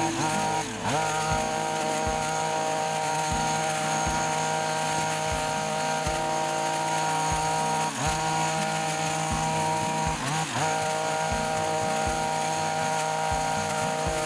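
Mitox 28MT multi-tool's 25.4cc two-stroke petrol engine running steadily at high revs, with the hedge cutter attachment fitted; the revs dip briefly about a second in and twice more later.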